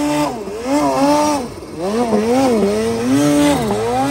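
Two-stroke mountain snowmobile engine revving hard, its pitch climbing and dropping several times as the rider works the throttle.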